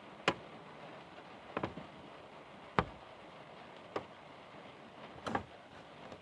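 Five sharp taps, evenly spaced about one every second and a quarter, over a steady hiss, heard from inside a truck cab.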